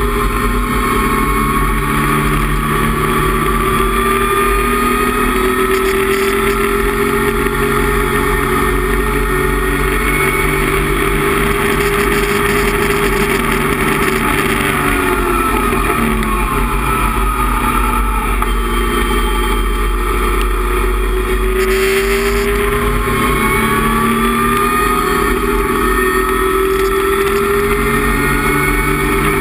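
Datsun 260Z race car's inline-six engine heard from inside the cockpit, running hard under load. Its pitch climbs slowly, drops about halfway through, then climbs again and falls away near the end.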